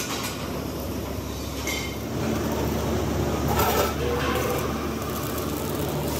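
Electric arc welding on the steel shell of an LPG gas cylinder: a steady, noisy crackle with a low machine hum underneath.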